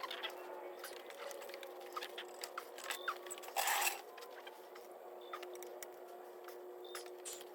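Hand tools and metal parts being handled on an engine during head-bolt work: scattered light clicks and ticks, with one short rasping scrape about three and a half seconds in, over a faint steady hum.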